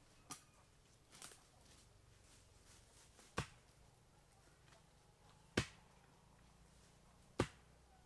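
Chops of a hand-held blade into a sapling's trunk, five strokes about two seconds apart: two lighter ones, then three sharper, louder ones.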